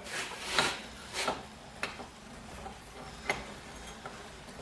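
A few light clicks and taps as a worn auxiliary-belt tensioner assembly is handled and worked by hand. The loudest is a sharp tick a little over three seconds in.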